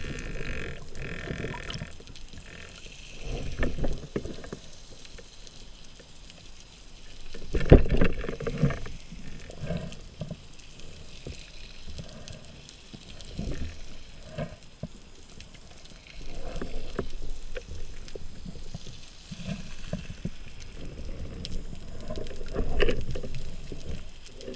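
Underwater handling noise on a camera housing: irregular muffled bumps and knocks as a speared octopus clings to the camera, the loudest about eight seconds in.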